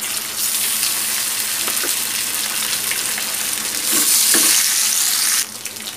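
Marinated fish steaks sizzling in hot oil in a frying pan as they are laid in one by one. The sizzle swells about four seconds in as another steak goes into the oil, then drops sharply near the end.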